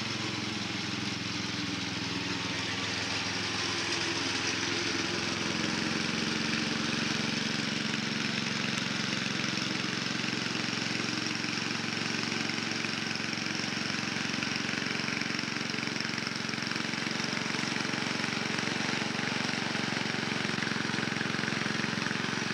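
Riding lawn mower's small engine running steadily as it drives across the grass, getting a little louder as it comes closer.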